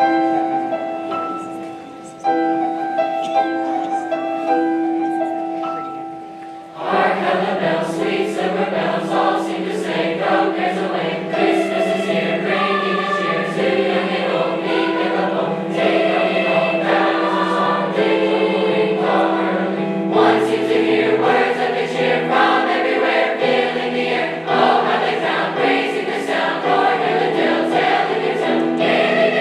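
A school choir singing a Christmas concert piece: held chords for the first several seconds, then a fuller, louder passage from about seven seconds in.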